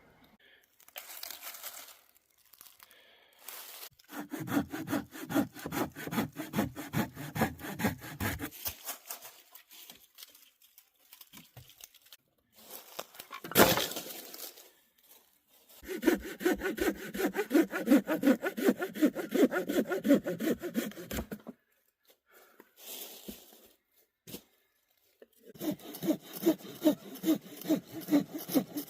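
Hand saw cutting firewood in quick back-and-forth strokes, in three spells of a few seconds each with pauses between. A single sharp crack comes about halfway through.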